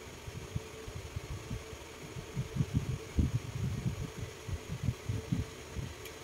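Electric fan humming steadily under soft, irregular low thumps that grow denser and louder about two seconds in.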